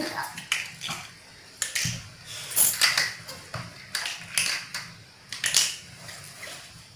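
Plastic building blocks clattering and clicking on a tile floor as children pick through the pile and press pieces together: a string of irregular sharp clicks and knocks.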